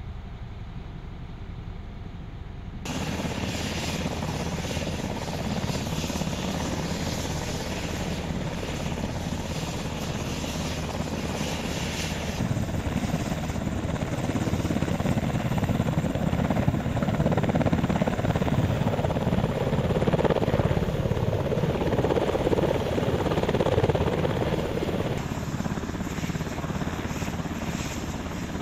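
Military helicopters running; in the loudest stretch a tandem-rotor CH-47 Chinook hovers low, its rotors and turbines going steadily. The sound jumps in level about three seconds in, changes again about twelve seconds in, and drops back near the end.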